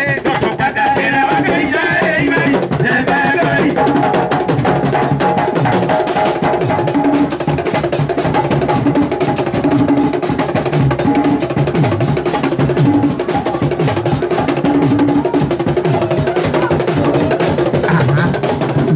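Live aloukou band music: an instrumental stretch of dense drumming and percussion over sustained pitched notes. A singing voice trails off within the first few seconds.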